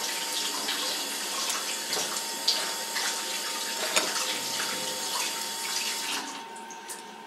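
Running water, a steady hiss with a few small clicks over it, stopping about six seconds in.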